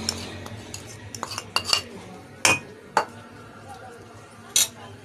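A few scattered clinks and taps of a china plate against a glass mixing bowl, the loudest about two and a half, three and four and a half seconds in.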